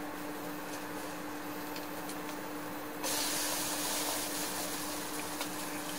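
Kimchi pancake sizzling in oil in a frying pan, the sizzle jumping louder about three seconds in and easing off again, over a steady low hum.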